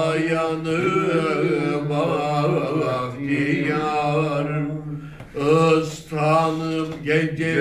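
Two men singing a Turkish art-music song together, unaccompanied, in long held notes with melismatic ornaments; the words "ağlayanı" come near the start and "İstanbul" near the end. A short break for breath comes about five seconds in.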